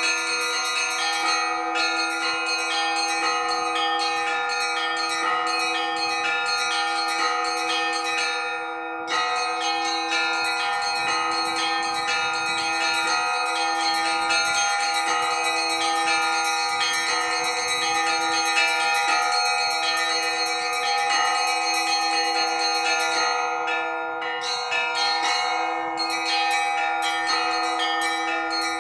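Russian Orthodox church bells rung together in a festive Easter-week peal. Small bells are struck rapidly over the steady hum of larger bells, and the small bells break off briefly twice, about nine seconds in and again near the end.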